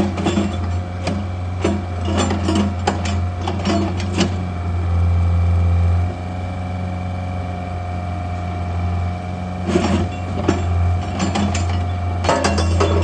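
Bobcat 435 mini excavator's diesel engine running steadily, with bursts of metallic clanks and knocks from the working machine in the first few seconds and again near the end. The engine note drops a little about six seconds in.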